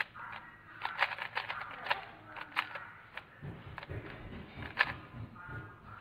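Speed cube being turned fast: irregular quick plastic clicks and clacks as the layers snap round, with a low rumble underneath from about halfway.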